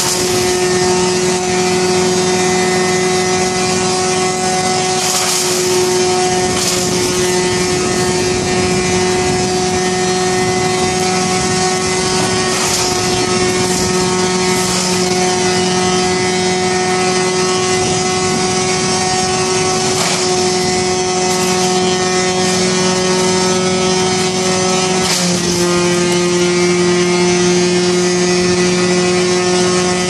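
1974 Wayne wood chipper running at a steady speed, a loud even drone, with a few short sharp cracks as branches go through it and are chipped.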